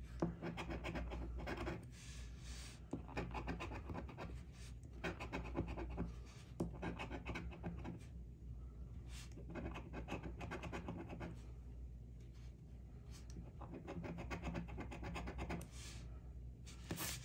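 A coin scraping the scratch-off coating off a paper lottery ticket: quick, repeated scratching strokes in runs, with short pauses between them.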